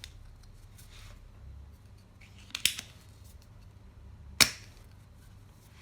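Spring-loaded plastic desoldering pump (solder sucker) being worked by hand: two sharp snaps of the plunger, one a little before halfway (a quick double) and one about three-quarters of the way in.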